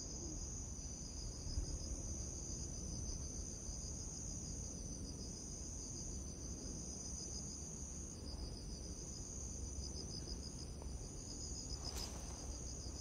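Insect chorus of crickets, one steady high, rapidly pulsing trill over a continuous higher tone, with a low even rumble underneath.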